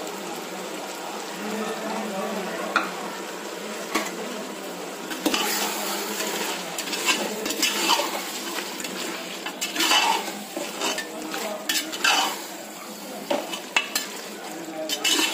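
A metal ladle scraping and knocking against a metal pot while chicken masala mixed with curd is stirred, over a steady sizzle of frying. The scrapes and knocks come more often in the second half.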